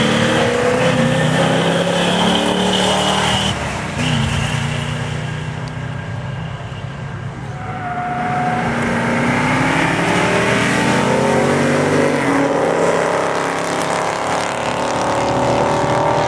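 Classic Mopar muscle car engines revving and accelerating down a track, their pitch rising in repeated sweeps, with a sudden break about four seconds in.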